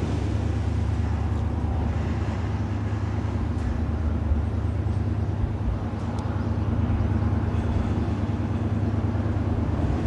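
Japan Coast Guard patrol vessel Kunigami passing at speed: a steady low engine rumble with the hiss of its bow wave.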